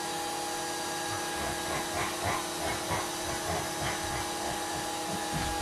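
A small electric motor running steadily: a constant whining hum with a hiss over it. Faint irregular knocks and squeaks sound over it from about two to four seconds in.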